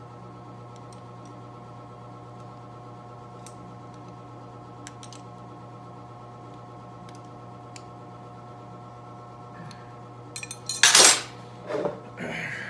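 Steel hand wrenches clanking: a steady low hum with a few faint ticks, then near the end one loud metal clank followed by lighter clinks.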